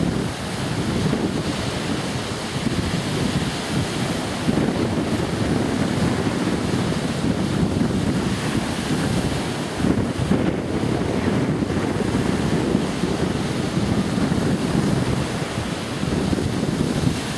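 Wind buffeting the microphone in a continuous rumbling rush, with waves on choppy lake water beneath it.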